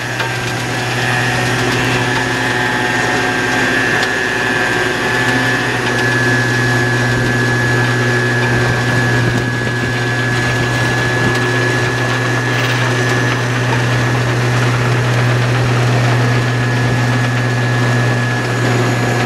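Jerr-Dan flatbed tow truck's hydraulic winch running as it pays out cable and the car rolls back down the bed. The truck's engine and hydraulics make a steady drone with a thin, steady high whine over it.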